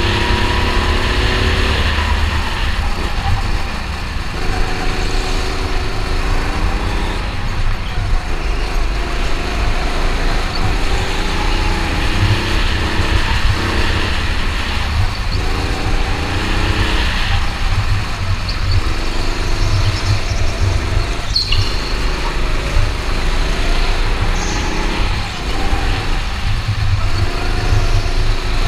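Go-kart's small engine under way, its pitch repeatedly rising and falling as the throttle opens on the straights and lifts for the corners, over a steady low rumble. One sharp knock about two-thirds of the way through.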